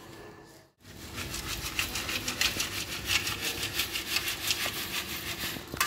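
Old farmyard manure and soil being sifted through a round metal sieve over a metal basin: a rhythmic rasping of grit scraping over the mesh as the sieve is shaken back and forth, about four strokes a second. It starts about a second in.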